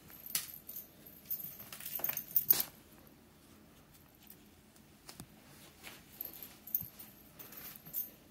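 A cat playing with a wand toy: rattling clicks and scuffles as it pounces and grabs, with a dense cluster about two seconds in and scattered lighter ones later.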